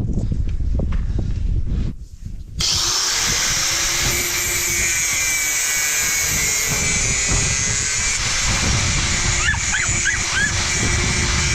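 Rumble and knocks, then after a short break about two and a half seconds in, a power tool runs steadily, a metal-working tool used while making a crank handle.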